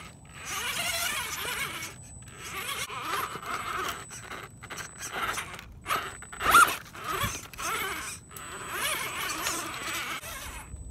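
Axial Wraith RC rock crawler's electric motor and geared drivetrain whining in short stop-start bursts as it crawls over rocks, tyres scraping on stone, with one louder burst about six and a half seconds in.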